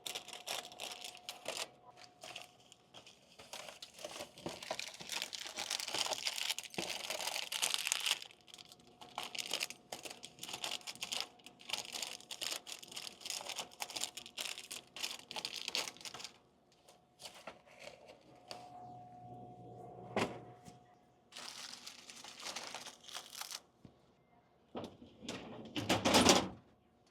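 Plastic snack packaging crinkling and rustling as packets are handled during vending machine restocking, with scattered clicks and knocks. There is a louder rustle near the end.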